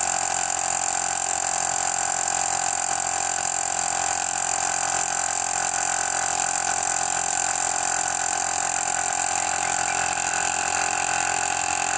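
Black Cat 12 V DC mini air compressor (tyre inflator) running steadily, pumping air into a car tyre as the pressure climbs through the mid-20s PSI toward its set 39 PSI auto-cut-off.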